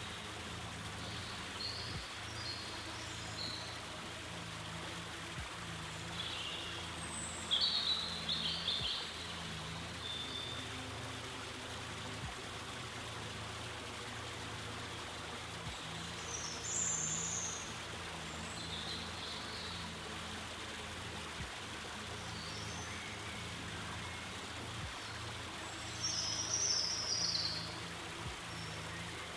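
Steady trickle of running water, with short high bird-like chirps breaking in several times, loudest about a quarter of the way in and near the end.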